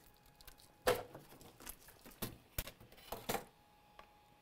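Handling of a graphics card and its power cord on a workbench: a few sharp clicks and knocks, the loudest about a second in.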